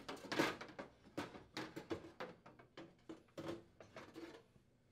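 Sheet-metal oven bottom panel being lifted and slid back inside the oven cavity: a series of light clicks, knocks and scrapes of metal on metal, some with a brief ring.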